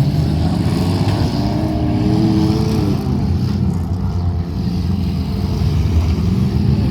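Several demolition derby cars' engines running loudly together, with one engine revving up briefly around two to three seconds in.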